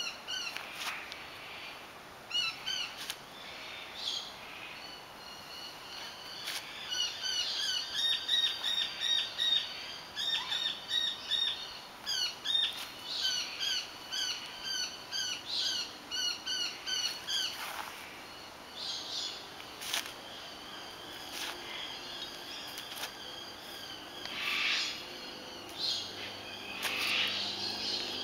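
Songbirds chirping in quick runs of short repeated notes, busiest through the middle, over a steady outdoor background.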